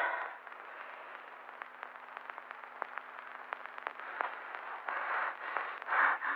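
Hiss and crackle of an old film soundtrack: a steady hiss dotted with many small clicks, swelling briefly twice near the end.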